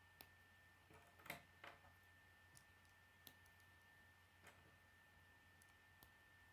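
Faint, scattered clicks of K'nex plastic rods and connectors being handled and snapped together by hand, the loudest pair a little over a second in. A faint steady tone hums underneath.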